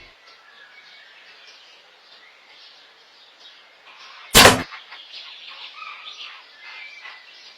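A single sharp, loud shot from a hunting bow about four seconds in, over faint outdoor background with small birds chirping.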